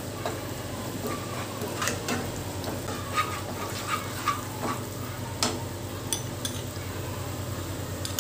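A utensil stirring and scraping in a pan of sauce over a low sizzle, with scattered clinks against the pan, as cornflour slurry is stirred in a little at a time to thicken it.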